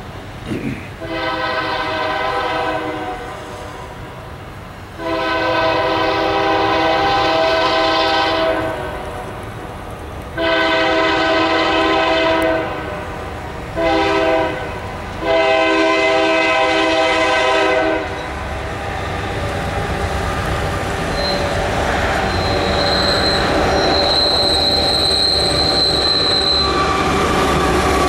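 Union Pacific diesel locomotive's air horn sounding a chord of several notes in a series of long blasts, ending in the long-long-short-long grade-crossing signal. After the last blast, the rumble of the locomotives and train rolling past grows louder, with a thin high-pitched squeal for a few seconds near the end.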